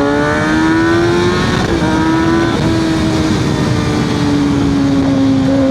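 Kawasaki ZX6R 636's inline-four engine, breathing through an M4 exhaust with the Q3 Stage 2 baffle fitted, revving up under acceleration: the pitch climbs for about a second and a half, breaks briefly, then holds steady. Wind noise rushes underneath.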